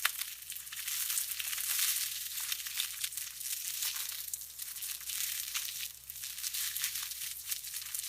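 Crisp, crunchy crackling of fresh salad greens, a continuous dense crunch that swells and eases in waves, with a brief lull about six seconds in.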